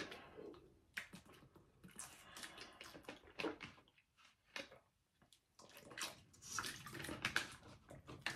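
Water splashing and dripping in short, irregular bursts with scattered clicks, quieter for a moment near the middle, during teeth-brushing with salt.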